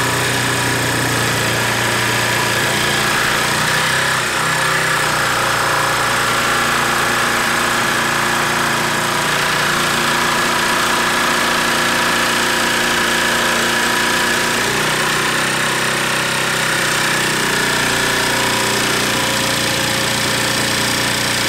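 Old-style cordless Ryobi jigsaw sawing steadily through a wooden board, its blade running under constant load. The cut is seriously slow.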